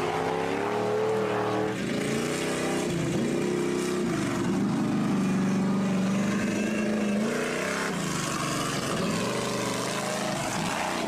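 A person's voice imitating monster-truck engines, long wavering 'vroom' noises that rise and fall in pitch, with one drawn-out stretch held for a few seconds in the middle.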